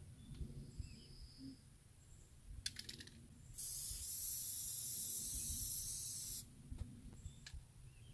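Aerosol spray can hissing in one steady burst of about three seconds, after a few quick clicks.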